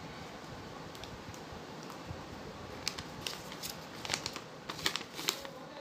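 A folded paper invoice being unfolded and handled, giving a string of crisp, irregular paper crackles over the last three seconds, over a steady low background hiss.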